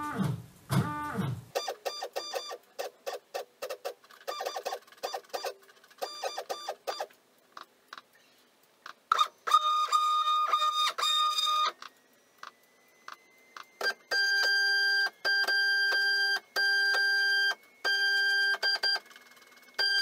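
Stepper motors of a homemade cantilever 3D printer driving its axes. First comes a run of short buzzes, then longer pitched whines that start and stop and change pitch from move to move.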